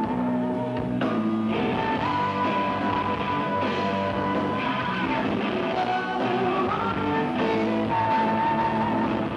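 Live rock band playing: a female singer holding long notes over electric guitar, bass guitar and drums.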